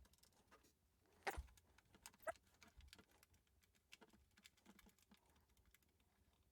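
Faint scattered clicks and taps of a puzzle box being handled and its parts pressed, with two sharper clicks about one and two seconds in.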